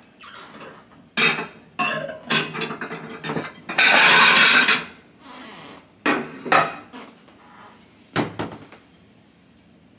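Dishes clattering as plates and bowls are taken down from a kitchen cabinet and set on the counter: a string of sharp knocks and clinks, with a longer, louder scraping rustle about four seconds in.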